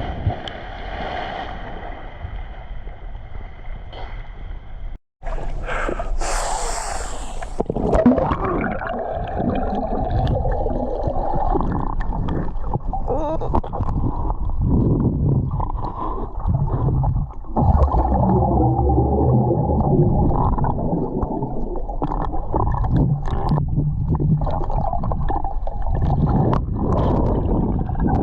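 River water gurgling and sloshing, heard muffled through a GoPro's waterproof housing as it goes into and moves through the water, with a hissing splash about six seconds in.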